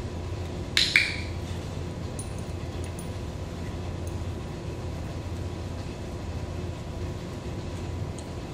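Steady low hum of a room, with a loud, sharp double click about a second in and a few faint small clicks a little later.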